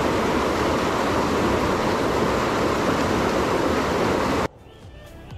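Whitewater mountain stream rushing over rocks, a steady loud rush of water that cuts off suddenly about four and a half seconds in; faint background music begins just after.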